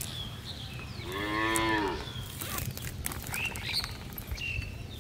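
A cow moos once, a single call about a second long that rises and falls in pitch, starting about a second in.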